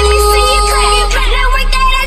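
Breakbeat dance music in a breakdown without drums: a held deep bass note and sustained synth tones, with a chopped vocal sample wavering over them.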